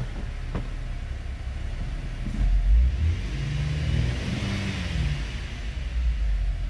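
2014 GMC Terrain's 3.6-litre V6 running at idle, then revved once starting about two and a half seconds in, climbing to roughly 2,000 rpm and easing back toward idle.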